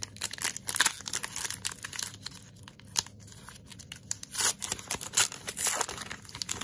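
Wrapper of a 2021 Topps Heritage baseball card pack being torn open by hand, crinkling and tearing in a run of sharp crackles. The loudest bursts come in the second half, and the crackling stops abruptly at the end.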